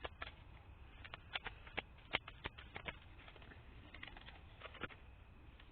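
Tarot cards being handled: a run of light, irregular clicks and taps that thin out after about three seconds.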